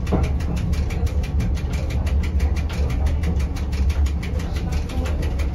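Rigi rack railway train running along the track, heard from inside the cab: a steady low rumble with a fast, even ticking.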